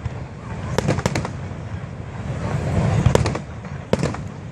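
Fireworks exploding: clusters of sharp cracks about a second in, around three seconds and again near the end, over a steady low rumble.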